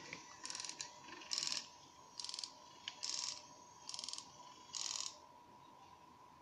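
Gear train of a Nikon SB-600 flash's zoom head ratcheting in six short bursts, a little under a second apart, as the flash-tube carriage is moved along its track.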